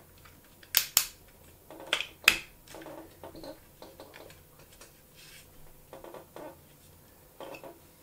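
Hard plastic parts of a Transformers Earthrise Sky Lynx figure clicking and clattering as it is handled and its joints are moved. Four sharp clicks come in the first two and a half seconds, followed by softer scattered rattles.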